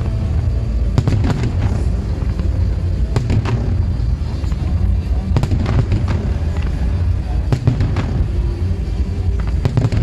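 Aerial firework shells bursting in a display: sharp bangs in clusters about every two seconds over a continuous low rumble, with music playing underneath.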